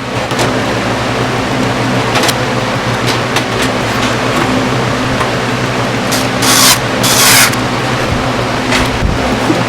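Steady low mechanical hum with short bursts of rustling or hissing, two close together about six to seven and a half seconds in.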